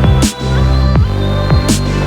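Electronic background music with a heavy bass, falling bass drops and a steady beat.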